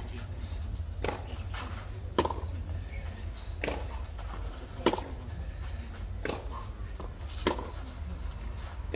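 Tennis rally on a clay court: a tennis ball struck back and forth by rackets, six hits about 1.3 seconds apart, every other one louder, over a steady low rumble.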